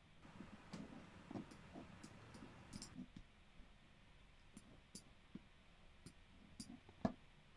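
Near silence with scattered faint clicks of a computer mouse, one a little louder about seven seconds in.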